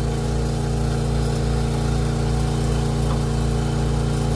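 An engine running steadily at an even, unchanging pitch.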